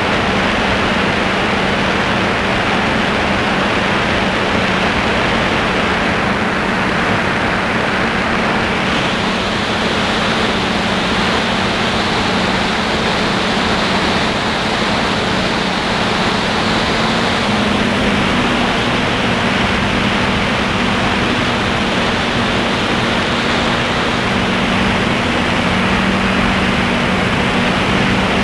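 DJI F550 hexacopter's six brushless motors and propellers running in flight, heard from a camera on the craft: a loud, steady hum over a hiss of rushing air, its pitch shifting slightly a couple of times as the motor speeds change.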